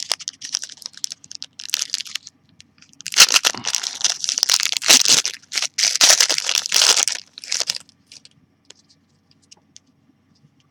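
Wrapper of a Panini Classics football card pack crinkling in the hands, then torn open with several seconds of loud ripping and crackling in the middle.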